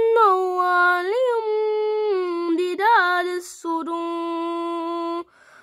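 A boy reciting the Quran in a high, melodic chant, drawing out long held notes with a few rising turns. He takes a short breath about three and a half seconds in and stops just before the end.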